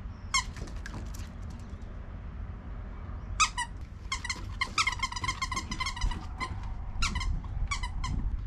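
Squeaky toy being squeezed: a couple of short squeaks at the start, then a fast run of quick, even squeaks from about three and a half seconds in until near the end. Low wind rumble on the microphone underneath.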